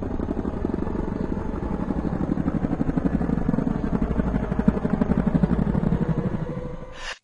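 A machine running with a fast, even throb, like an engine or rotor, growing a little louder and then fading out near the end.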